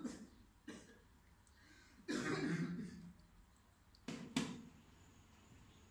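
A man coughing and clearing his throat, with a short cough and then a longer rough fit of about a second. Near the end come two sharp, short sounds.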